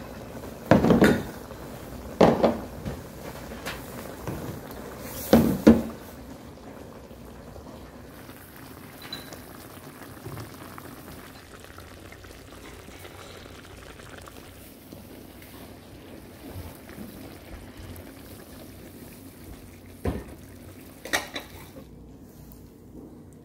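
Dishes clattering as they are set down, three times in the first six seconds, with two lighter clinks near the end. Between them is the soft steady bubbling of a pot of braised hairtail simmering in an earthenware pot.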